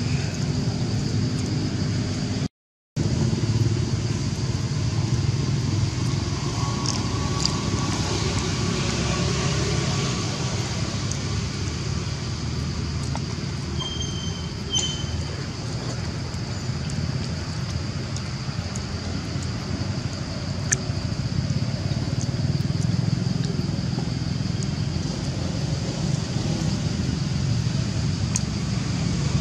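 Steady low background rumble with a thin high hiss over it; the sound cuts out completely for a moment near the start, and a brief high chirp is heard about halfway through.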